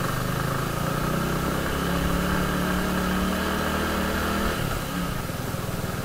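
Motorcycle engine running at low speed, its note steady and then dropping about four and a half seconds in as the throttle eases off.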